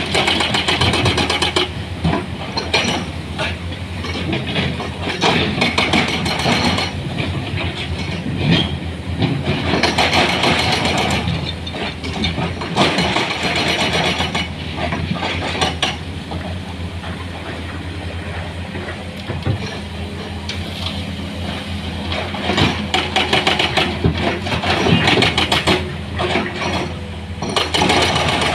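Heavy diesel engines of an excavator and dump truck running steadily, with repeated louder stretches of rattling noise every few seconds as work goes on.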